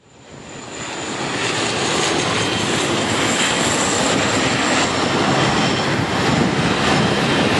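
Bombardier Dash 8 Q400 turboprop airliner on final approach passing low overhead, its Pratt & Whitney PW150A engines and propellers making a loud, steady rumbling drone with a faint high whine. The sound builds over the first second or two, then holds.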